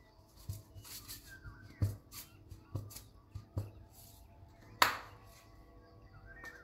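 Glass spice jars being handled: a series of sharp taps and clicks, the loudest about five seconds in, with faint background music underneath.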